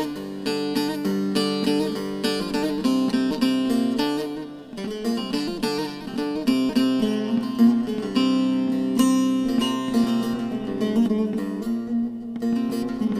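Instrumental Turkish folk music: a plucked string instrument picking a quick melody over steady held low notes, the introduction before the singing of a türkü.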